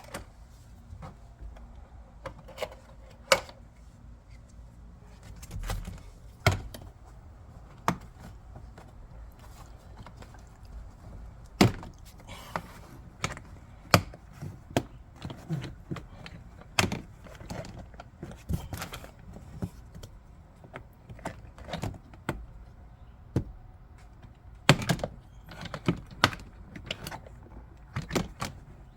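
Irregular clicks, taps and knocks of hands handling and working on car interior trim parts, a few sharper knocks standing out, over a faint low hum.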